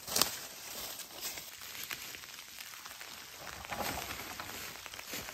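Footsteps crunching and rustling through deep dry fallen leaves while a dead branch is carried and handled. There is a sharp crack just at the start.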